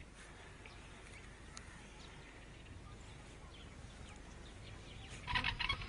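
Faint background hiss, then about five seconds in goats start bleating loudly in quick pulsing calls.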